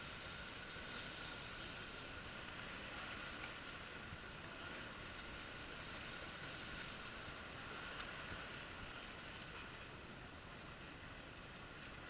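Small sea waves washing and breaking among concrete breakwater blocks: a steady, fairly faint wash of surf.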